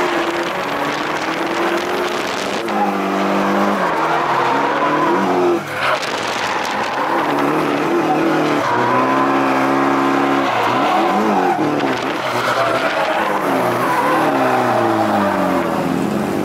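Nissan 180SX's turbocharged four-cylinder engine revving up and down again and again through a drift, with the rear Kenda KR20 tyres squealing and skidding, heard from inside the cabin. The revs dip briefly about five and a half seconds in.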